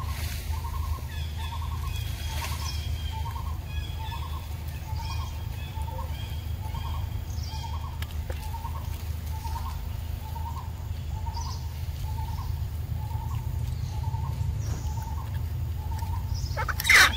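A bird calling a short note over and over at an even pace, about one and a half times a second, with fainter higher chirps now and then. A steady low rumble runs underneath.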